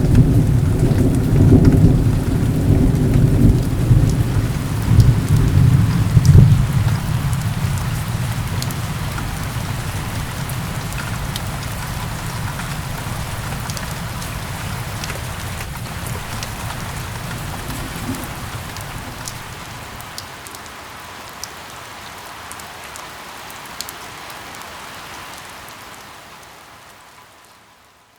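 Thunderstorm sound effect: steady rain with thunder rumbling heavily for the first few seconds and then dying away. The rain keeps hissing with scattered drop ticks and gradually fades out near the end.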